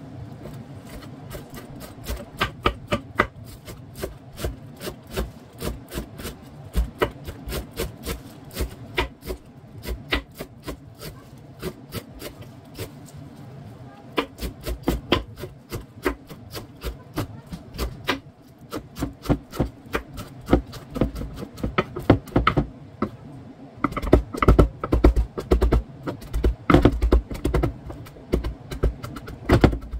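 Chef's knife chopping fresh cilantro on a bamboo cutting board: a quick run of blade strikes on wood, getting faster and louder about six seconds before the end.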